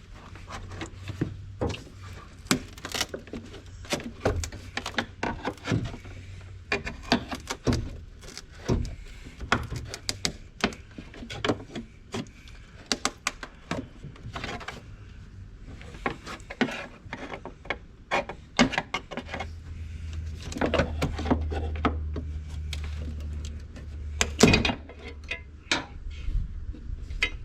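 Irregular clicks, knocks and light scraping of hands and tools working the old blower motor out of its housing in a 1993 Ford F-250. A low steady hum runs under it for the first several seconds and again from about two-thirds of the way through.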